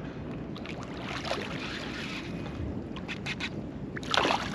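A hooked redfish thrashing and splashing at the water's surface, loudest a little after four seconds in, with a few short sharp splashes just before. Wind and lapping water run steadily underneath.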